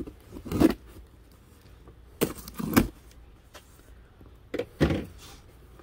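Packing tape on a cardboard box slit with a knife and the cardboard flaps pulled open: three short bursts of scraping and tearing, about two seconds apart.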